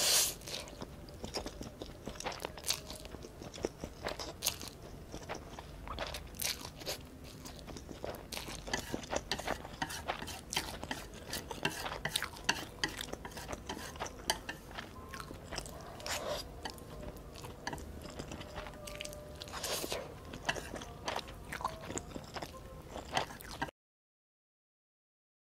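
A loud slurp of spicy instant noodles at the start, then close-miked chewing full of small wet mouth clicks, with chopsticks tapping and scraping a plate as the leftover noodles are gathered. The sound cuts out to dead silence near the end.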